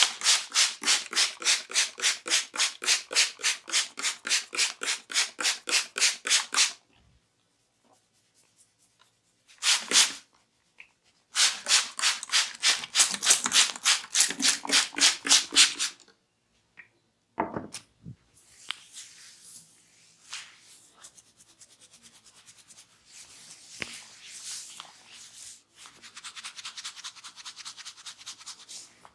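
Hands rubbing skin and hair in a vigorous massage: two long runs of fast, even rubbing strokes, about five a second, then softer, irregular rubbing.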